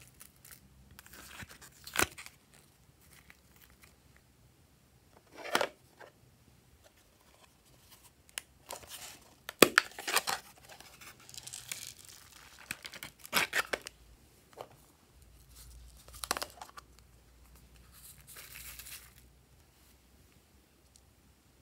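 Thin plastic moulds being handled and soft clay peeled out of them into a glass dish. Scattered sharp plastic clicks and taps come between stretches of soft crinkling and peeling.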